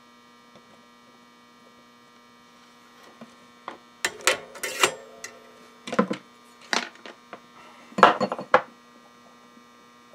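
Steady electrical hum from a power inverter. From about three seconds in, a run of clinks and knocks as tools, wire and a metal heat sink are handled on the workbench, loudest around the middle and again near the end.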